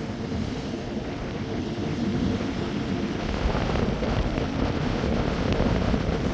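Wind buffeting the microphone over the wash of sea waves, a steady low rumbling noise.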